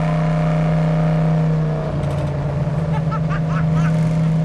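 A 1970 Dodge Challenger's V8 engine runs hard at speed in a steady low drone. In the second half a woman yells and whoops over it.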